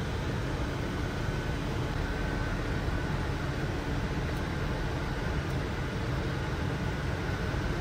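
Steady rushing flight-deck noise inside a Boeing 747-400 cockpit on approach, with a faint steady tone above it.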